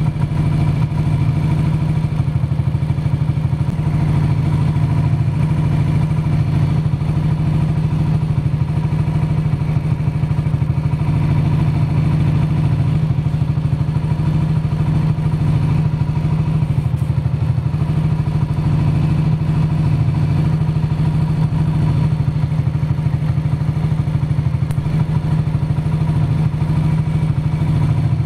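Air-cooled motorcycle engine idling steadily, with no revving.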